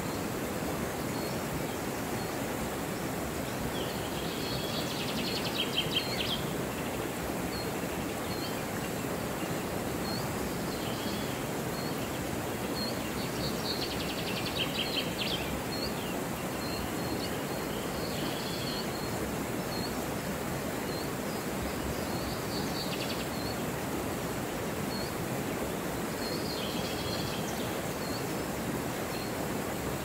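Fast, shallow river rushing steadily over rocks. Over it, small birds sing: a short high chirp repeated about once a second, and four brief trilled songs.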